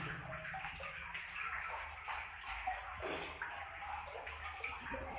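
A person in waders wading through shallow water along a flooded mine adit, the water sloshing and swishing with each step.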